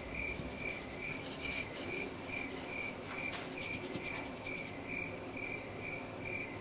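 A cricket chirping: short chirps of one pitch repeated evenly, about two or three a second.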